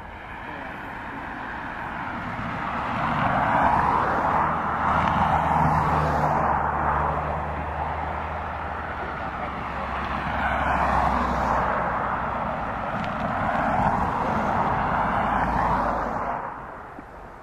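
Jet engine noise from Boeing 777 airliners on final approach, a steady rush that swells and fades about three times as the aircraft pass.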